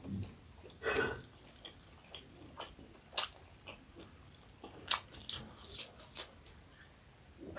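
Close-up eating sounds: chewing and wet mouth noises as steamed buffalo-meat momo is eaten, with a few sharp clicks scattered through.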